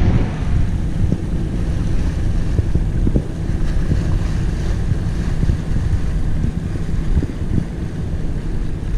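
Wind buffeting the microphone aboard a sailboat under way: a loud, uneven low rumble with a steady hiss of wind and water above it.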